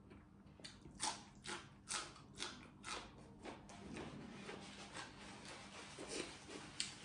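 Close-up crunchy chewing of a raw green vegetable. The bites crunch about twice a second from about a second in, then come more slowly.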